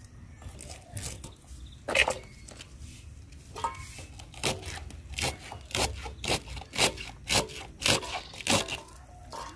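Fresh cabbage being shredded with a knife: crisp crunching cuts, a few at first, then about two a second from the middle on.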